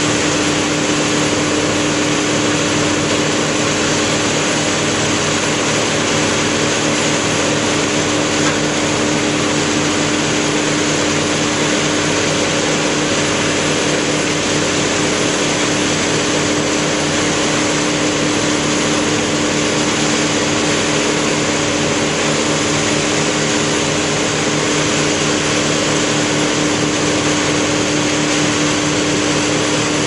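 Heavy equipment engine running steadily at constant speed, a loud even drone with a strong hum that does not change.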